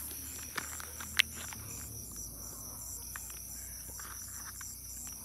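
Night insects, crickets, chirring steadily in a high, evenly pulsing trill, with a few small handling clicks and one sharp click about a second in.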